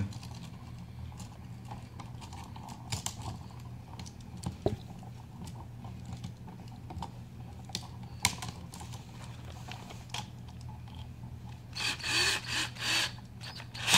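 Scattered small clicks and scrapes of wires and a screwdriver being worked onto an electrical outlet's terminal screws, with a few rougher scraping strokes near the end.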